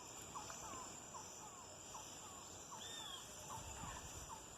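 Natural outdoor ambience: a steady high-pitched insect drone, with a small animal's short call repeating about two or three times a second and a single higher gliding whistle about three seconds in.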